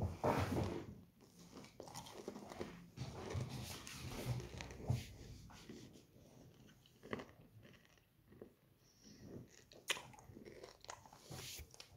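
Candy being chewed and crunched close to the microphone, with irregular crunches and clicks and wet mouth sounds.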